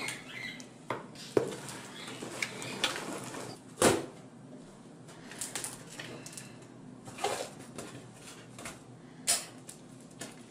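A wooden spoon scraping and knocking in a plastic bowl of pink slime, then hands squeezing and kneading the sticky slime, with scattered wet clicks and squelches. A sharp knock about four seconds in is the loudest sound.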